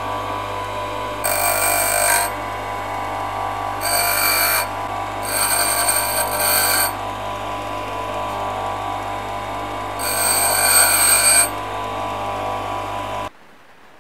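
Bench grinder running with a steady hum. Four times a thin steel two-stroke piston ring is pressed to the spinning wheel, each contact a high, ringing screech lasting about a second. The ring is being ground down because it was binding in the bore. The sound cuts off abruptly near the end.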